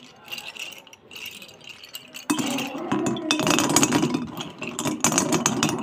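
Slate pencils rattling softly in the hand, then a loud, dense clatter from about two seconds in as they are dropped into a dark pan and pushed about by hand, the sticks clinking against each other and the pan.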